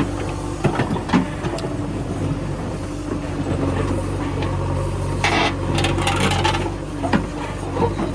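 Diesel engine of a JCB 3DX backhoe loader running steadily, with sharp knocks near the start and near the end, and a rush of noise lasting over a second about five seconds in.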